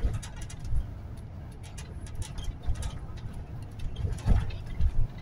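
Inside a moving city bus: a steady low rumble of engine and road, with irregular knocks and rattles from the cabin, the loudest a few in quick succession about four to five seconds in.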